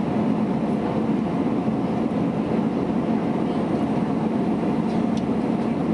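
Airbus A320 cabin noise in flight: a steady drone of engine and rushing air with a constant low hum.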